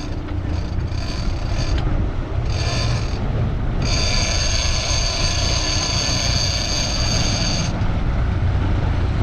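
A big-game fishing reel's drag screaming as line is pulled off: a short burst, another about two and a half seconds in, then a long run of about four seconds. Underneath is the steady rumble of the sportfishing boat's engines.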